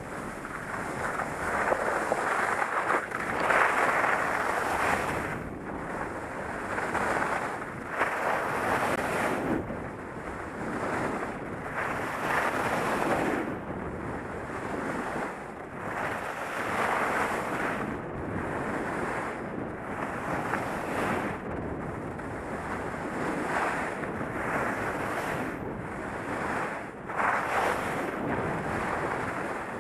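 Skis carving and scraping on snow through a run of turns, the hiss swelling and fading about every one to two seconds, with wind buffeting the microphone.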